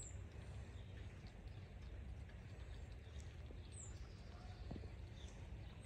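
Faint outdoor ambience: a steady low rumble with a few short, high, falling bird chirps every couple of seconds.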